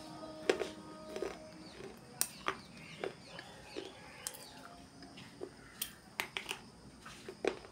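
Dry, crunchy chewing and biting of a slate pencil, with irregular sharp cracks, several of them close together about six to seven and a half seconds in.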